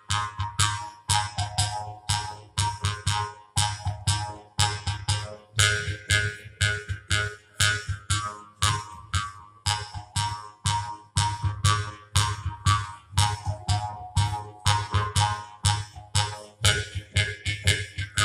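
Binayo, a Nepali bamboo jaw harp, played into a microphone in a quick even rhythm of about four plucks a second over a steady low drone, its overtones shifting up and down in pitch as the mouth shape changes.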